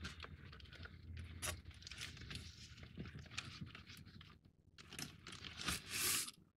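Faint handling noise of a cardboard 3D-puzzle ship model being lifted and turned by hand: small clicks, rustles and scrapes of card rubbing on card and on the desk, with a louder scrape near the end.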